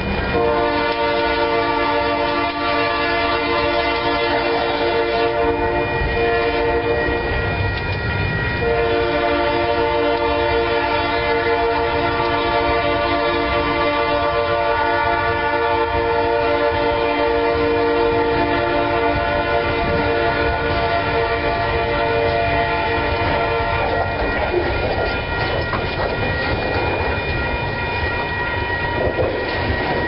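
Freight locomotive horn sounding a long chord of several steady tones, broken briefly about eight seconds in and dying away about two-thirds of the way through, over the clatter of freight car wheels rolling over the rails. Near the end only the wheel clatter and rumble of the passing cars remains.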